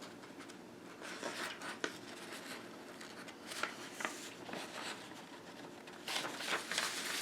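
Sheets of printed paper being handled and shuffled: faint rustling with a few soft taps, a little busier near the end.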